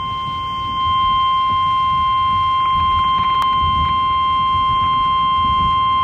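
NOAA Weather Radio 1050 Hz warning alert tone, one steady unbroken beep from a Realistic Weatheradio Timekube's small speaker, growing louder about a second in. It signals that a tornado warning is about to be read.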